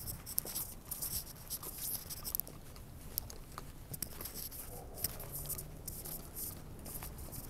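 Phone handling noise while walking: a jacket sleeve brushing against the phone's microphone and footsteps on dry grass and leaves, a steady run of scratchy rustles and light clicks.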